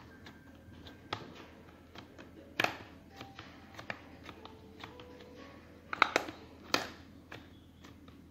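The bottom of a glass pressing and tamping a biscuit-crumb base into a metal cake tin: light, irregular clicks and knocks, with a louder knock about two and a half seconds in and a cluster of louder ones about six seconds in.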